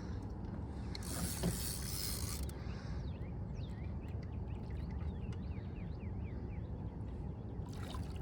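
Fishing reel being cranked as a hooked fish is brought in, giving a rapid run of short mechanical ticks, over a steady low rumble.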